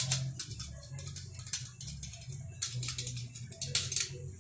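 Hands seasoning raw chicken wings in a glass baking dish: dried oregano shaken from a small glass over the wings, with irregular light taps and clicks of glass and wings against the dish.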